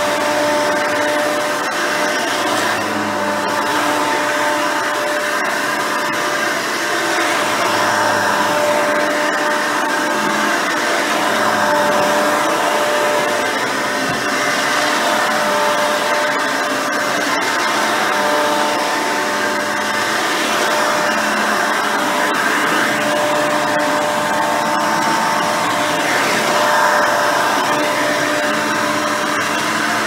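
Hoover Elite 350 upright vacuum, with a 5-amp motor, 7-blade fan and dual-row brush roll, running steadily while it is pushed over carpet. It is a continuous motor-and-airflow hum with a steady high tone, and its level wavers slightly.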